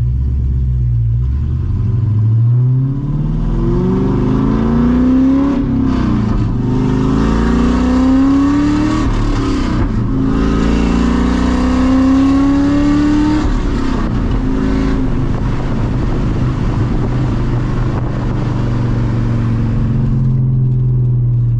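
C6 Corvette Grand Sport's 6.2 L LS3 V8 through open exhaust dumps after the mid-pipe, heard from inside the cabin, accelerating lightly. Its note rises three times, dropping back at each upshift of the manual gearbox, then settles into a steady low drone while cruising.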